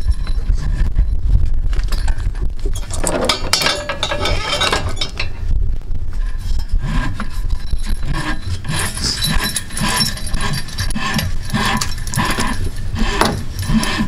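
Steel parking-brake cable being pushed through its outer sleeve by hand, with repeated scraping and rubbing and light metallic clinks.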